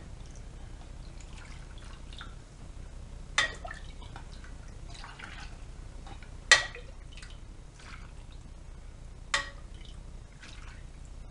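Steel ladle scooping gelatin-rich cooking broth from a stainless pot and pouring it over meat pieces in a plastic tub: liquid dripping and splashing, with a sharp clink of the ladle on the pot about every three seconds.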